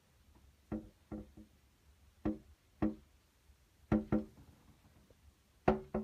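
Window-mounted plastic bird feeder being knocked about by a feeding squirrel: about eight hollow knocks at uneven intervals, some in quick pairs, each with a short ringing tone.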